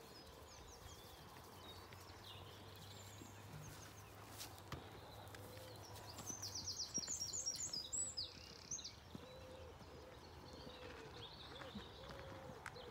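A songbird sings a quick run of high, rapidly repeated notes lasting about two and a half seconds, around the middle, over a quiet rural background.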